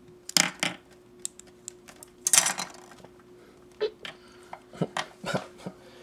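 Hard plastic model-kit parts clicking and clattering as they are handled and fitted together, with a short rattle about two and a half seconds in, over a faint steady hum.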